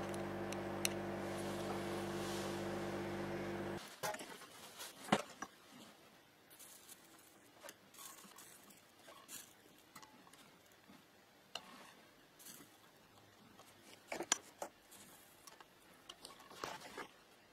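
A small electric motor hums steadily and stops abruptly about four seconds in; after that, scattered light clicks and taps of small tools and parts being handled on a workbench.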